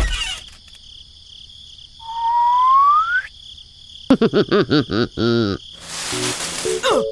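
Edited cartoon-style sound effects: a rising whistle about two seconds in, then a quick run of short bouncy chirping tones, then a brief hiss near the end.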